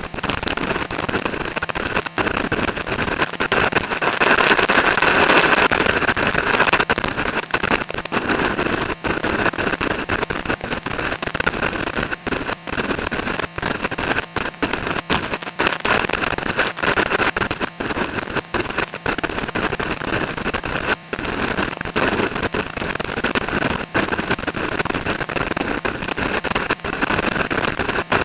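Strong wind buffeting the microphone: a loud, uneven rushing that is strongest a few seconds in and keeps cutting out for split seconds.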